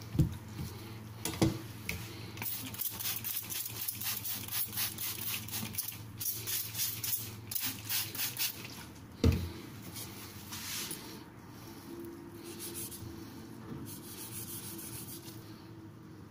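A gloved hand scrubbing across a wet whetstone in quick strokes, about two or three a second. There are a few sharp knocks, one near the start and one about nine seconds in, and the strokes die away in the second half.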